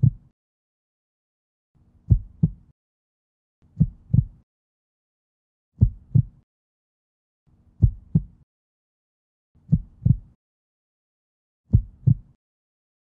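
Heartbeat sound effect: a slow, low double thump, lub-dub, repeating about every two seconds with silence between the beats.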